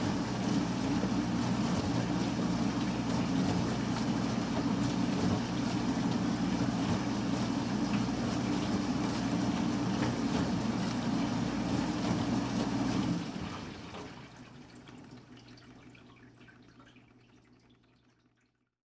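Industrial cloth-shredding machine running: a steady low hum under a dense rushing noise. The sound fades away from about two-thirds of the way through until it is nearly silent.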